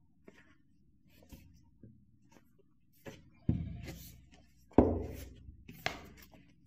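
Cardboard e-reader box being handled: rubbing and light clicks, then a few sharp knocks in the second half, each dying away, the loudest about five seconds in.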